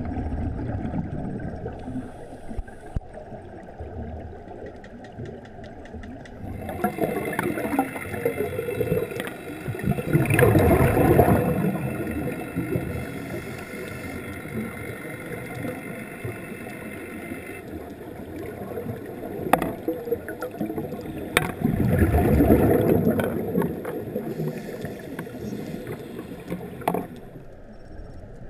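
Underwater sound of a scuba diver breathing through a regulator, with exhaled bubbles rumbling loudly twice, about ten and twenty-two seconds in. A steady motor whine of several tones carries through the water from about seven seconds until near the end.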